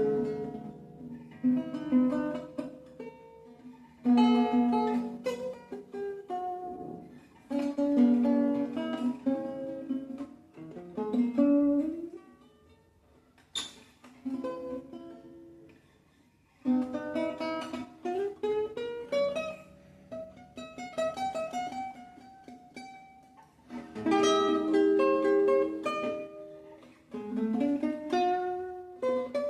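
Acoustic guitar music: plucked notes and strummed chords played in phrases, with a pause of about two seconds near the middle.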